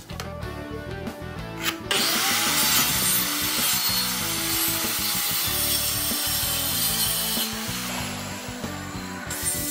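Handheld electric circular saw starting about two seconds in and cutting through 18 mm plywood along a 45-degree bevel: a loud steady motor whine with cutting hiss, which stops shortly before the end. Background music plays underneath.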